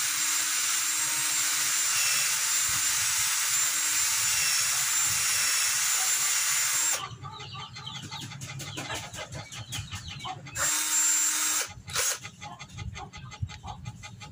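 Cordless drill running steadily with a high whine, boring into a small carved wooden pipe; it stops suddenly about seven seconds in and runs again briefly around the eleven-second mark.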